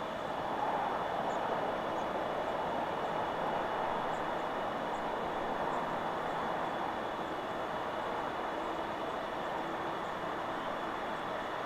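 Wind rushing steadily through forest trees, with a few faint, high bird chirps.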